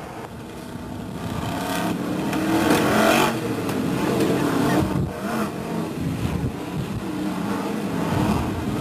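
V8 engines of several BriSCA F1 stock cars racing past, revving and easing as they lap. The noise swells over the first couple of seconds as the cars come nearer, and the engine pitch keeps rising and falling.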